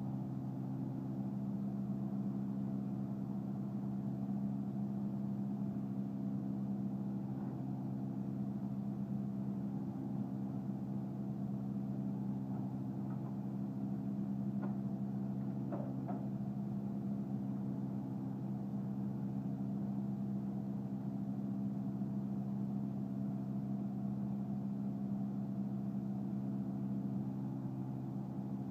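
Diesel engine of an Eschlböck Biber 84 truck-mounted wood chipper running at a steady low hum while its hydraulic loading crane unfolds. A few faint clicks about halfway through.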